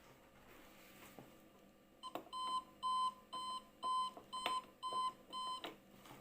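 A homemade IV-13 numitron clock's alarm going off: seven short, even beeps at about two a second, starting about two seconds in, with a few clicks among them.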